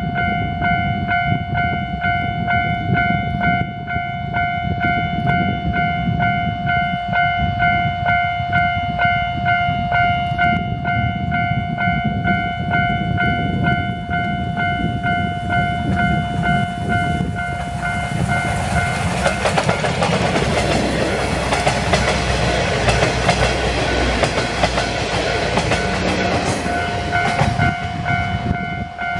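C58 239 steam locomotive hauling a passenger train, its running noise and exhaust swelling into a loud rush as it passes about two-thirds of the way through. Under it a level-crossing bell rings with a steady, even beat, stopping near the end.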